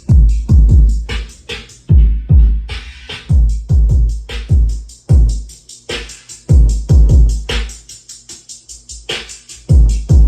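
Electronic hip-hop track with heavy bass drops and drum-machine hits, played loud through Alto TS410 powered speakers and Rockville Slim D8 dual-8-inch subwoofers as a sound test. The bass hits fall steeply in pitch and come in uneven clusters, with short breaks between phrases.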